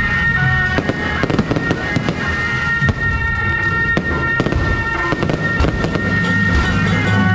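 Fireworks going off in many quick, irregular bangs and crackles, over music with a long held high note.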